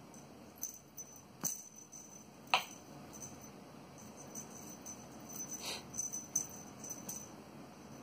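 A bird cat toy jingling and rattling faintly as it is played with. A few sharp clicks cut in, the loudest about two and a half seconds in.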